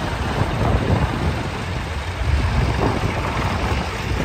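Vintage tractor engines running as tractors drive slowly past, a steady low rumble.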